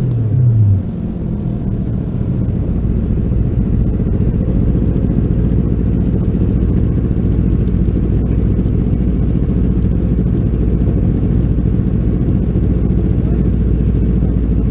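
Yamaha R25 parallel-twin engine winding down as the bike slows in the first second, then idling steadily while stopped, with other motorcycles idling around it.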